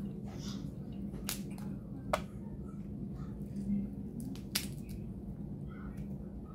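Snow crab leg shells snapped and cracked apart by hand: three sharp cracks, about one, two and four and a half seconds in, with fainter crackles between.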